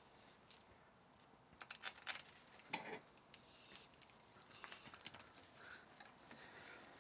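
Faint clinks and clicks of bolts and hand tools being handled on a gearbox casing: a quick run of small clicks about two seconds in, one louder knock just after, then scattered light ticks.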